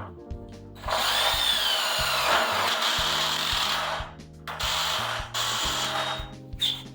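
Power drill boring through a garage door strut into the door, in three runs: a long one starting about a second in, then two short ones, its whine shifting in pitch during the first.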